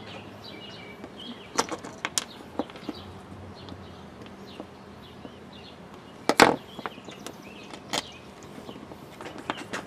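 Scattered clicks and knocks as a replacement garden hose connector is handled and worked onto the hose end. The loudest knock comes about six and a half seconds in.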